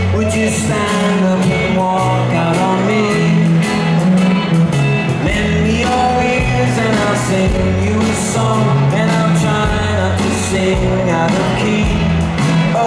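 Live rock band playing: a singer over electric guitars, a bass line and drums.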